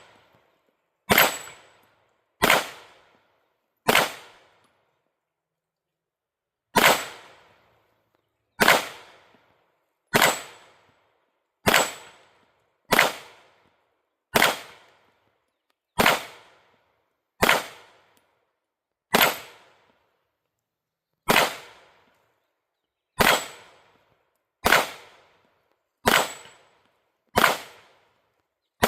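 Canik SFX Rival 9mm pistol fired in slow, steady single shots, about seventeen of them, roughly one every one to two seconds, with a longer pause a few seconds in.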